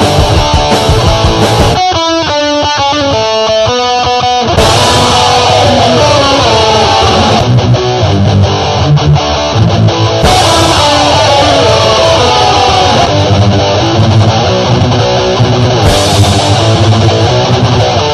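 Punk rock instrumental made with the Punk-o-Matic song maker: electric guitar and bass at full tilt. About two seconds in, the sound thins to a short run of clean single guitar notes, and the full band comes crashing back about two and a half seconds later.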